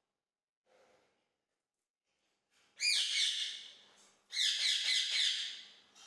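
Indian ringneck parrot giving two loud, harsh screeching calls, each about a second long: the first about three seconds in, the second about a second and a half later.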